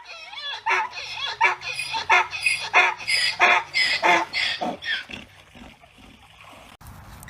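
A dog giving a rapid run of short, high calls, about three a second, which stop about five seconds in.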